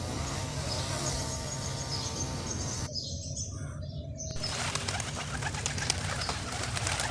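Birds calling, with wing flaps, from several short nature recordings spliced together; the sound changes abruptly about three seconds in and again about a second later.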